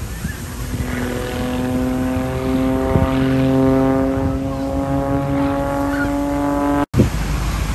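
Propeller-driven aerobatic biplane flying overhead: a steady engine-and-propeller drone with a clear pitch. It breaks off sharply just before the end.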